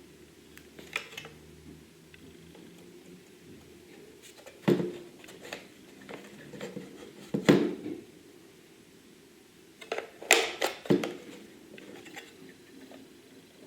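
Irregular clicks and knocks of hard plastic parts being handled by hand, the loudest about halfway through and a quick cluster near the end.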